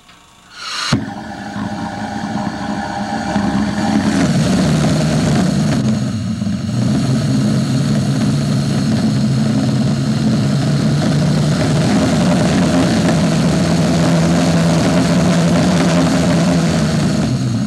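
Propane-fuelled Gluhareff G8-2 pressure jet engine lighting with a sharp pop about a second in, then running with a loud, steady roar over a low drone that builds for the next few seconds. The level drops right at the end.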